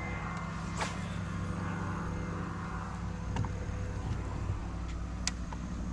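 A motor running steadily as the fishing kayak moves to a new spot, with a few short clicks or knocks. The sound cuts off suddenly at the end.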